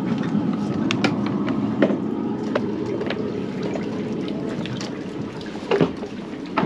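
Moored boat's inboard engine idling, a steady low burble with water splashing and trickling at the hull. Scattered sharp ticks run throughout, with two louder knocks near the end.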